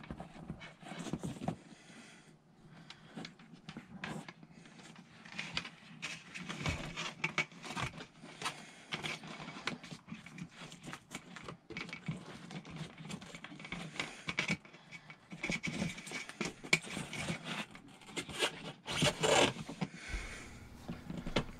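Handling noise from a ceiling light fixture being fitted: irregular scraping, rustling and light knocks as the wires are tucked into the ceiling opening and the fixture is pressed up against the ceiling.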